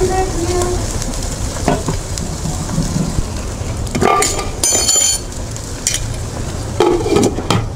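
Chopped vegetables sizzling in a nonstick wok, stirred and scraped with a wooden spatula at first, then frying on their own. A brief high squeal sounds about five seconds in.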